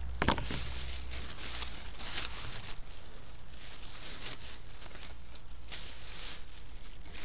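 Clear plastic bag crinkling and tearing in a run of uneven rustles as it is pulled off a fishing rod, with a couple of sharp snaps just after the start. A steady low rumble runs underneath.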